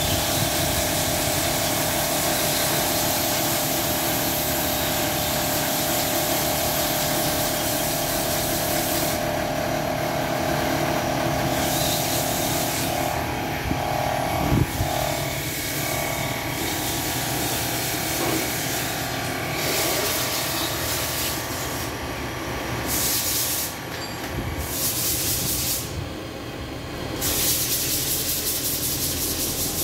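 Engine lathe running as a Ford Ranger brake rotor is resurfaced, a steady machine noise with a high hiss that drops away several times in the second half. There is a single sharp knock about halfway through.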